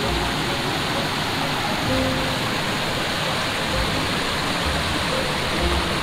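Mountain valley stream rushing over rocks, a steady even wash of water, with soft background music notes over it.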